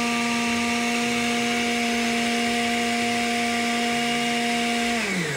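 Oster countertop blender running at a steady speed, puréeing a thick peanut-butter and chipotle dressing, with a constant motor hum over a whirring hiss. About five seconds in it is switched off and the hum falls in pitch as the motor spins down.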